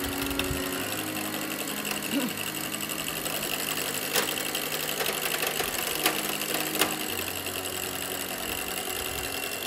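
Electric stand mixer running steadily, its beaters whirring in a bowl of cake batter, with a few sharp clicks about four, six and seven seconds in.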